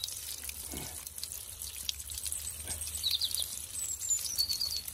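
Water showering steadily from a watering can's rose head onto a rose bloom and its leaves, a continuous splashing spatter. A small bird chirps a few times about three seconds in.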